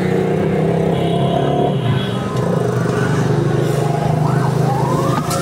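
A motor engine running steadily close by, a low even hum. Near the end a siren starts up, rising in pitch.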